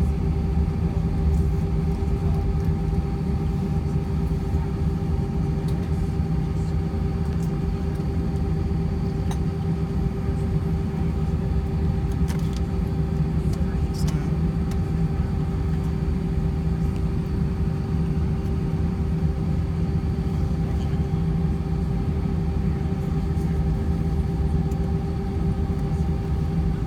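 Airbus A320 cabin during taxi, with its IAE V2500 turbofans at idle: a steady low rumble under a constant hum.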